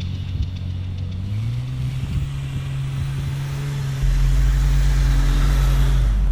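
Jeep Wrangler TJ engine raised to higher revs about a second in, held steady, then dropping back near the end. A loud, steady low rumble joins about four seconds in.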